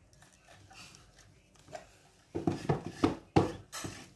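Plastic toy iron knocking and rubbing on a plastic toy ironing board: several quick knocks, starting about halfway in.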